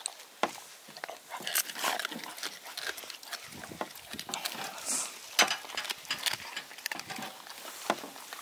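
A dog eating pieces of raw yellowtail off a wooden cutting board, with irregular wet smacking and clicking of its mouth and jaws and one sharper click about five and a half seconds in.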